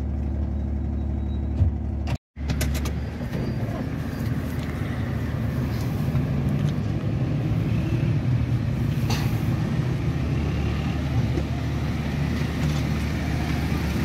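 Car engine idling, heard from inside the cabin, as a steady low hum. After a brief cut about two seconds in, the car is driving along, with engine rumble and road noise and a few clicks just after the cut.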